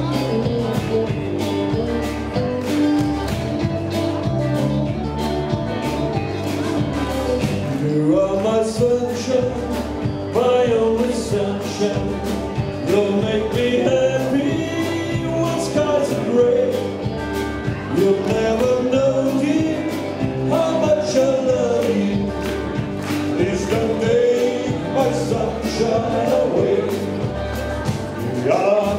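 Live country band playing: electric guitar and drums keeping a steady beat, with a lead melody line sliding up and down coming in about eight seconds in.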